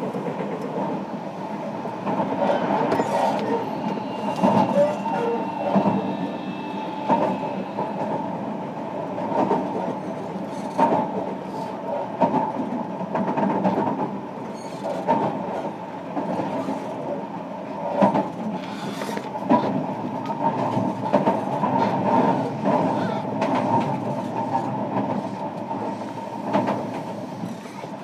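Running noise heard inside a JR Kyushu 305 series electric train's motor car, which has Toshiba permanent-magnet synchronous traction motors: a steady rumble while under way, with the wheels clicking over rail joints at uneven intervals.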